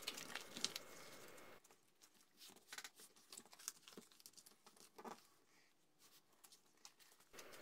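Near silence, with faint scattered rustles and soft taps as gingham sticky-back fabric and its backing paper are handled and smoothed down by hand.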